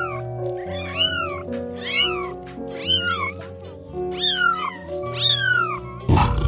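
Cat meowing repeatedly, roughly once a second, over background music. About six seconds in, a loud roar breaks in suddenly.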